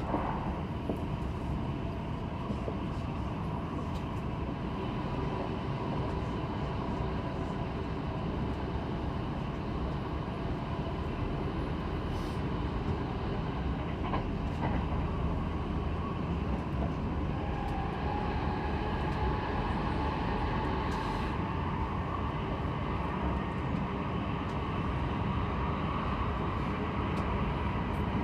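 Kintetsu 22000-series limited express heard from inside the car while running at speed: a steady rumble of wheels on rail with a few light clicks. A faint motor whine rises slowly in pitch over the second half.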